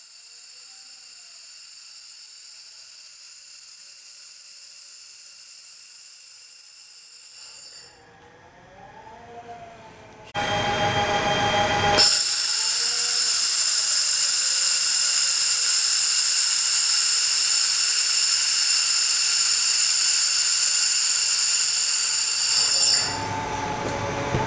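1500 W portable laser welding machine with wire feeder running, giving a steady high-pitched whine. The whine comes in two stretches: a fainter one that stops about eight seconds in, then, after a short loud noisy burst around ten seconds in, a much louder one lasting about eleven seconds that drops away near the end.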